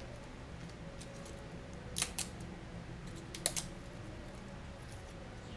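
Dried bay leaves and their plastic packet crinkling and crackling as they are handled, with a few sharp crackles about two seconds and three and a half seconds in, over a low steady hum.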